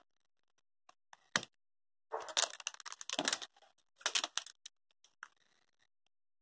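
Wrapper on an LOL Surprise ball crinkling and rustling in short bursts as it is handled and peeled, with a few small clicks.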